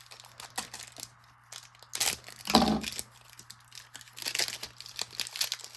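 Trading card pack wrappers being torn open and crumpled, with crackling and crinkling in quick short bursts, denser near the end. There is one louder, short sound about two and a half seconds in.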